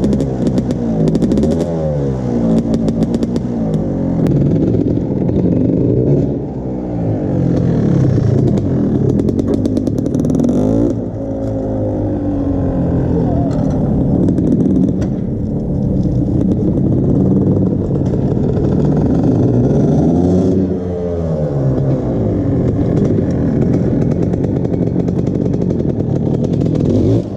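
1993 Yamaha YZ250's two-stroke single-cylinder engine being ridden, its pitch climbing and falling again and again as the throttle is worked, with brief drops about 6, 11 and 21 seconds in.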